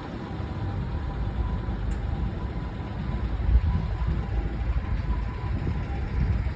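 A motor vehicle's engine running with a steady, uneven low rumble.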